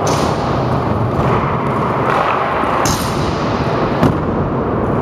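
Scooter wheels rolling on a concrete skatepark floor with a steady rumble, and two sharp clacks of the scooter striking the floor, about three seconds in and again a second later.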